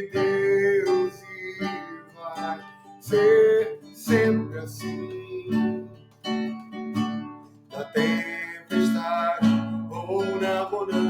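Strummed acoustic guitar accompanying a solo voice singing a Portuguese worship song in sustained, phrase-by-phrase lines.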